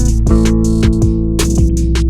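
Background music: a guitar-and-bass track with a steady drum beat.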